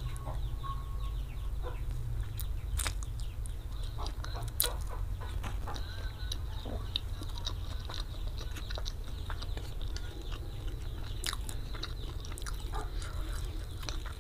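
Close-miked chewing of spicy fried flat rice noodles, with many short wet mouth clicks and smacks, over a steady low hum.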